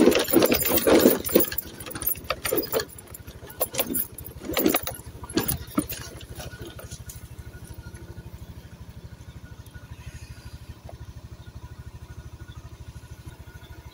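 A vehicle's engine running while it travels over a rough unpaved road. There is clattering and rattling over the first six seconds or so, which then dies away, leaving the engine's even running.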